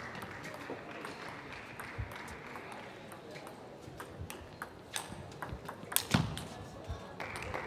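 Table tennis ball making sharp, irregular clicks against bat and table, the loudest about six seconds in, over the steady murmur of the hall.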